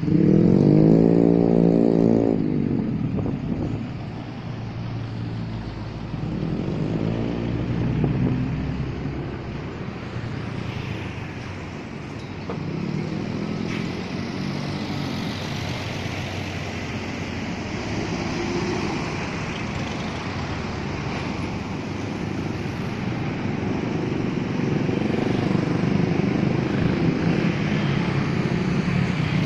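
Road traffic with motorcycles going by one after another, each engine note rising and falling in pitch as it passes. The loudest pass is right at the start, with weaker ones about every five or six seconds after.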